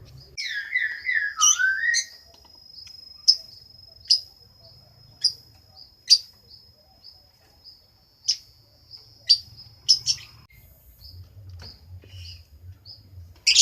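Lovebird chirping: a quick burst of chattering calls in the first two seconds, then sharp single chirps about once a second over a thin, steady high-pitched tone.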